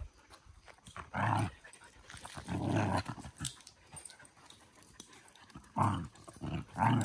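A dog growling during play: about five short, rough growls with pauses between them. These are play growls, not aggression.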